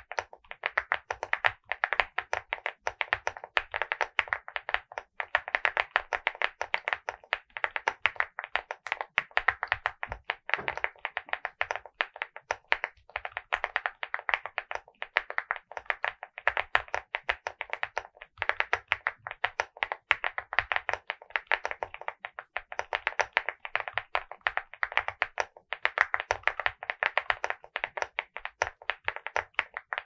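Typing at a normal, fairly quick pace on a WhatGeek LEOBOG Hi75 mechanical keyboard with stock Vertex V1 switches and MOA-profile keycaps: a dense, rapid run of keystrokes, broken by a few short pauses.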